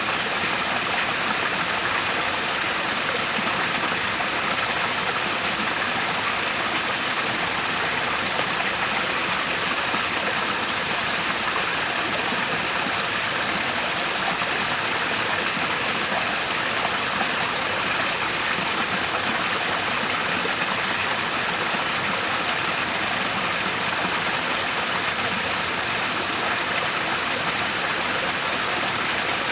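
Waterfall: falling water rushing steadily, with no change in level.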